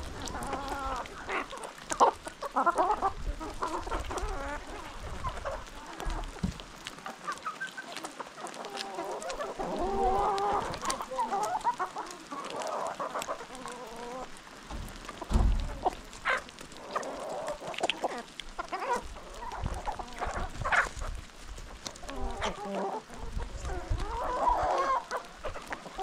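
A flock of free-range chickens clucking and calling continuously as they forage, with a few sharp taps mixed in.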